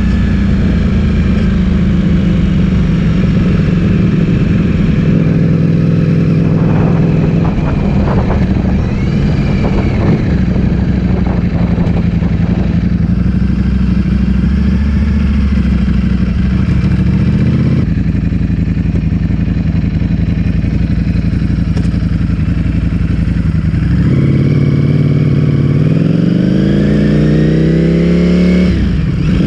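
Ducati Streetfighter V4S's 1103 cc V4 engine through an Akrapovic full exhaust system, running at a fairly steady pitch while riding. In the last few seconds it revs up with a rising pitch, then drops off sharply just before the end.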